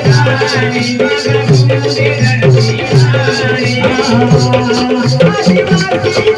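Adivasi folk dance music with a steady beat: an even shaker-like rattle over a repeating bass figure, with a melody line above.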